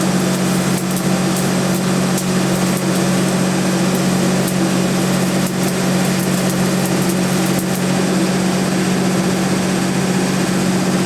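A small engine or motor running steadily with a constant low hum, and a dense crackle with scattered ticks on top.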